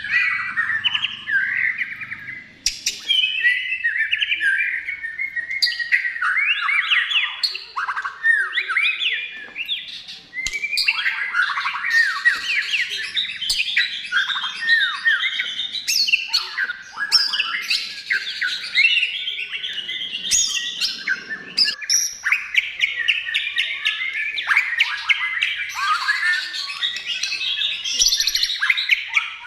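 White-rumped shama (murai batu) singing continuously: fast, varied phrases of whistled notes sweeping up and down, with a few short breaks.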